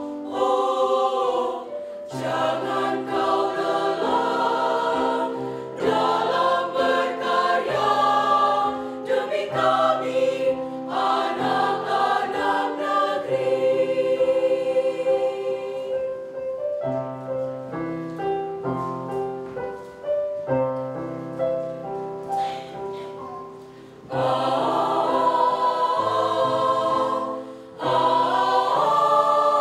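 Mixed choir of high-school boys and girls singing in several parts, with sustained chords. A softer passage in the middle thins and fades, then the full choir comes back loud about 24 seconds in.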